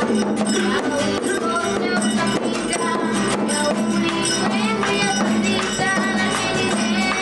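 Music with fast, dense percussion strikes and sliding melodic lines, going on without a break.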